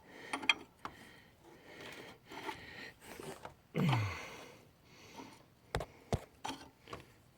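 Heavy breathing with a short falling grunt about four seconds in, as a wrench snugs down a metal fitting, then a few sharp metal clicks near the end.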